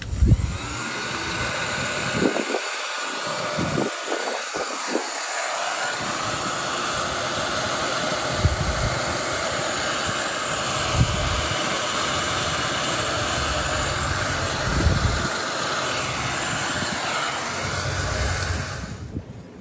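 Electric heat gun running steadily, its fan blowing hot air to shrink heat-shrink tubing over spliced power-cord wires. It switches on at the start and cuts off near the end, with a faint whine in the first few seconds.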